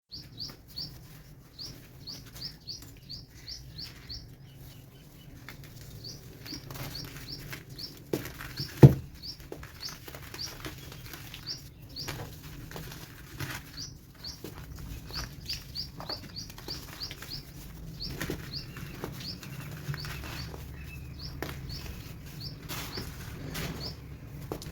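Chunks of baking soda being crumbled and crushed, with soft crackling crunches throughout and one sharp loud crunch about nine seconds in. A run of short, rising, high-pitched chirps repeats through it in bouts.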